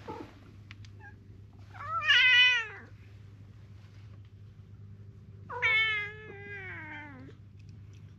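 A cat meowing twice. The first meow is shorter and louder, rising then falling in pitch; a few seconds later comes a longer meow that slides down in pitch as it ends.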